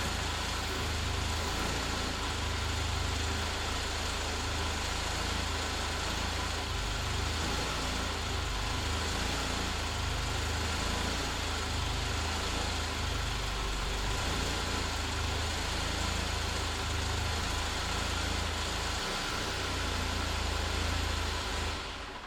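Mercedes-Benz W124's engine idling steadily; the sound stops near the end.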